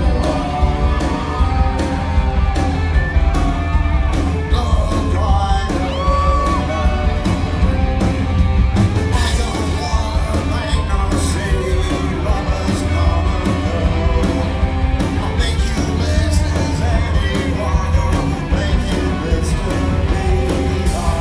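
Rock band playing live at full volume, with electric guitars, bass, drums and a sung lead vocal.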